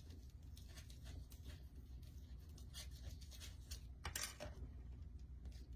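Faint, scratchy scraping of a wooden skewer twisted around inside a styrofoam pumpkin to widen a hole, a run of short scratches with a louder scrape about four seconds in.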